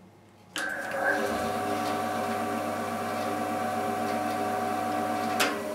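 JIB BAS 312 band saw switched on for its first trial run: its motor starts suddenly about half a second in, and motor and blade then run steadily with a very quiet hum, no cutting load. A sharp click comes near the end.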